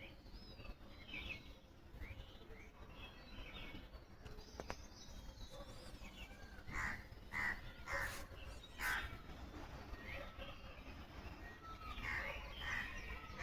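Several birds calling and chirping together in a morning chorus, with a run of louder, harsher calls repeated about every half second roughly seven to nine seconds in.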